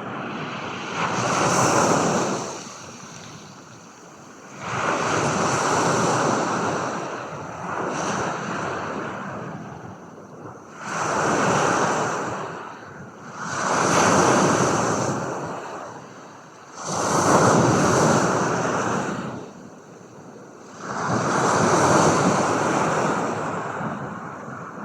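Ocean waves washing in, the surf swelling and falling away about every three to four seconds, around seven times.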